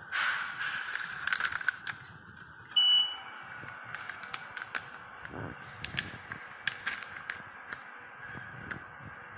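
Food metal detector on a conveyor line gives one short, high-pitched beep about three seconds in, its alarm buzzer sounding. Around it, foil snack packets crackle and rustle as they are handled, with a faint steady whine from the conveyor underneath.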